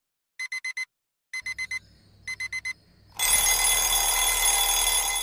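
Digital alarm beeping in quick groups of four, three groups about a second apart. About three seconds in, a much louder steady hiss with several held high tones takes over.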